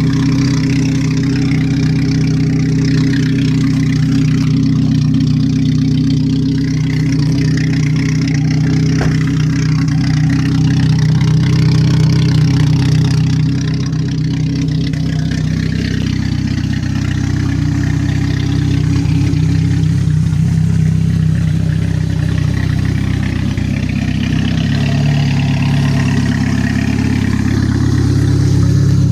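1996 Chevrolet Cavalier's four-cylinder engine idling steadily on fresh fuel after two years of sitting, with the pitch climbing a little near the end.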